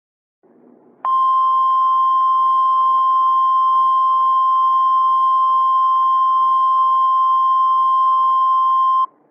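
NOAA Weather Radio warning alarm tone (the 1050 Hz tone): one steady high-pitched tone that comes in sharply about a second in, holds for about eight seconds and cuts off sharply, over faint radio hiss. It is the attention signal that comes before a spoken emergency warning.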